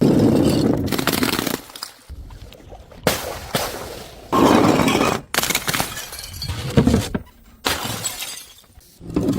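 Glass bottles smashing one after another, about five breaks each with a sudden crash followed by a tinkling scatter of shards, with abrupt cuts between them.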